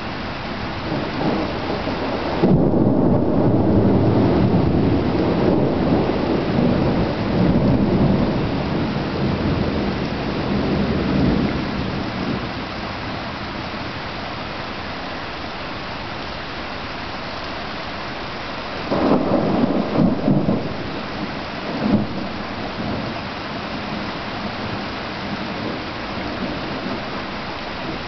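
Thunderstorm with steady rain. Thunder rolls low and long from a few seconds in for about ten seconds and fades away. About two-thirds of the way through comes a shorter, nearer burst of thunder cracks, followed by one more sharp crack.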